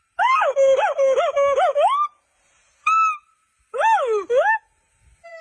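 Agile gibbon calling: clear whooping notes that swoop up and down in a rapid, bubbling run for about two seconds, then a single short rising note and, about a second later, two more swooping whoops.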